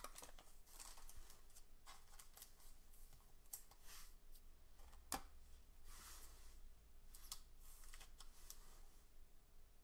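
Faint handling of a trading card being slid into a clear plastic card holder: light plastic scrapes and small clicks, with one sharper click about five seconds in.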